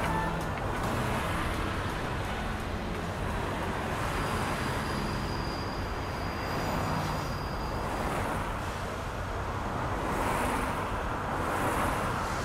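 City road traffic: a steady wash of many cars and trucks, with a faint high whine for a few seconds in the middle. It stops abruptly at the end.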